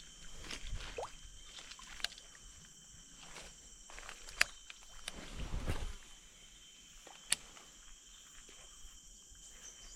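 Swamp ambience: insects shrilling steadily on two high pitches, broken by a few sharp clicks, with a low rumble a little past the middle.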